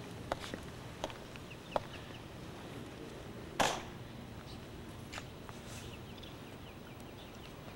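A few sharp clicks over a steady hiss, the loudest about three and a half seconds in, with faint bird chirps.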